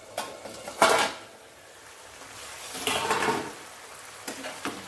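Stainless steel lid lifted off a frying pan of simmering curry, with a sharp metal clank about a second in. A longer, softer noise follows around three seconds in.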